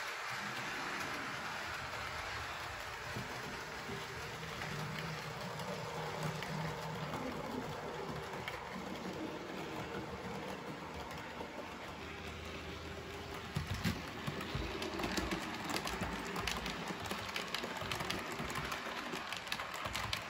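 H0-scale model train, a Roco class 35 steam locomotive with coaches, running on its track: a steady rolling hum, then rapid clicking of the wheels over rail joints from about two-thirds of the way through as the coaches pass close by.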